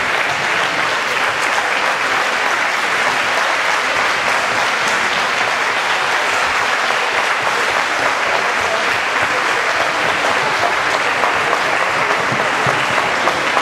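Audience applauding, many hands clapping in a dense, steady patter at an even level.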